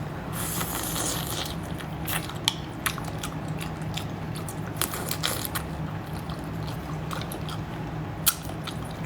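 Close-miked eating sounds: a person biting and chewing crunchy food, with sharp crunches and clicks scattered irregularly through, over a steady low hum.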